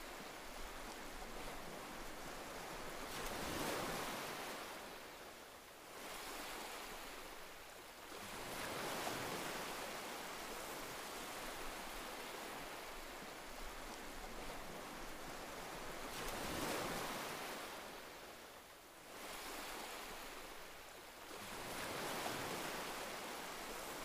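Sea waves breaking and washing in as a steady rushing surf. The sound swells and falls back four times, about every six seconds.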